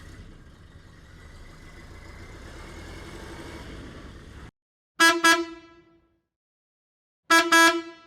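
A car horn sounding two quick toots, then another two about two seconds later, each a single bright note. Before them, for about four and a half seconds, a steady noisy background that cuts off suddenly.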